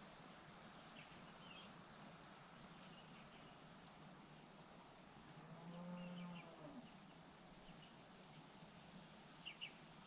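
Faint outdoor quiet with one distant, low, drawn-out animal call lasting about a second, just before six seconds in, falling in pitch at its end. A few faint, short, high chirps come and go, two of them close together near the end.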